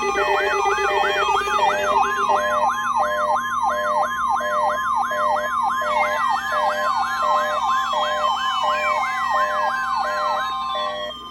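Several weather alert radios, including a RadioShack 12-996, sounding their electronic alarms together as a Required Weekly Test is received. One gives a siren-like tone sweeping up about twice a second over an evenly pulsing beep and a steady tone, and from about halfway slow falling whistles join in. All of it cuts off just before the end.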